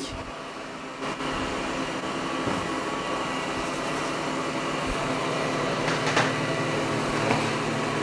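Ecovacs Deebot N8+ robot vacuum cleaning, its suction fan running as a steady hum with a few whining tones, which gets louder about a second in. A few light knocks come in the second half.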